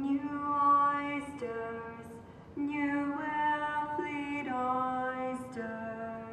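Unaccompanied female voice singing slow, long-held notes, the pitch changing every second or so.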